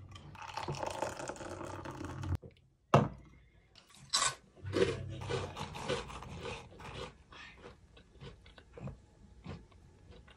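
Beer poured from a can into a glass mug for about two and a half seconds, then the can set down on the wooden table with a sharp knock. After that a hand rummages through a bowl of shrimp crackers, a run of dry crackly rustles, followed by a few faint clicks.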